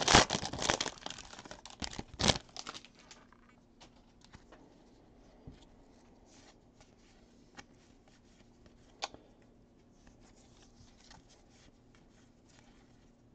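Foil trading-card pack wrapper crinkling and being torn open, ending in a sharp rip about two seconds in. After that, faint scattered clicks and rustles of the cards being leafed through by hand.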